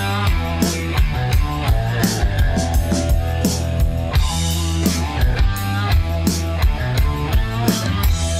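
Background rock music: drum kit keeping a steady beat under bass and electric guitar.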